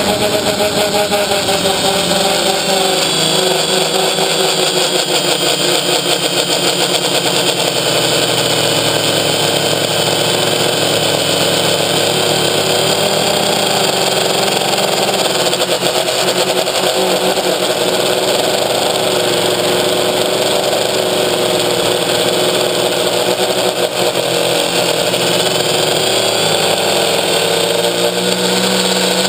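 Electric motors and propellers of a Quadrixette 30 FPV quadcopter in flight, heard from its onboard camera: a steady loud hum made of several tones whose pitch drifts slowly up and down.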